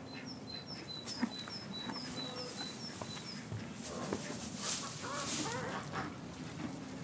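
A small bird repeating a high two-note chirp about ten times in the first few seconds, then dry hay rustling as an armful is dropped and spread on the ground, with a few farmyard fowl calls.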